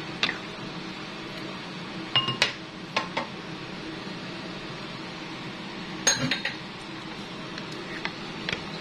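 Metal utensil clinking and knocking against a cooking pan of stew: scattered sharp clinks, a few ringing briefly, the loudest about six seconds in, over a steady faint hiss.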